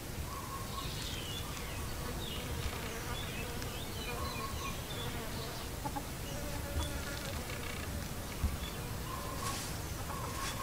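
Insects buzzing in a steady drone, with scattered short high chirps over it.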